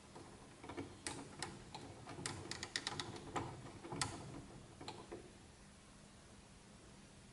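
Small sharp clicks and taps as the tonearm counterweight of a Yamaha P-07 turntable is gripped and turned by hand. The clicks come in quick succession in the middle, with the loudest about four seconds in, and stop about five seconds in.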